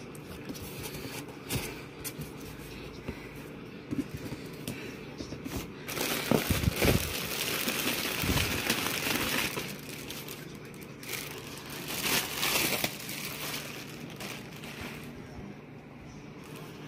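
Plastic packaging crinkling and rustling as it is handled in a cardboard shipping box. It is loudest in a longer spell about six seconds in and a shorter one about twelve seconds in, with scattered light knocks.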